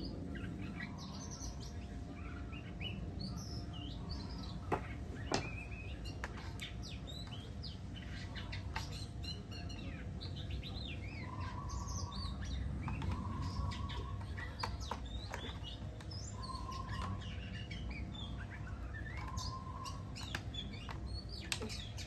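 Birds chirping and calling: many short, high chirps throughout, and in the second half a lower call of short held notes repeated four times. Two sharp clicks about five seconds in.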